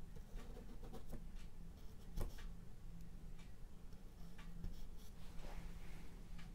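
Faint strokes of a stiff bristle brush working oil paint onto a textured canvas panel: light scratching and a few soft ticks, over a low steady hum.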